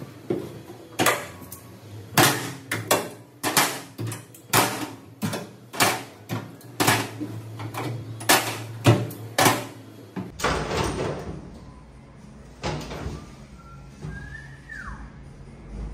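Sharp metallic knocks and clanks, one every half-second to second for about ten seconds, as locking C-clamps are unclipped from an aluminium boat's gunwale and handled, with footsteps on the aluminium hull. After a change about ten seconds in come a few scattered knocks and a short squeak.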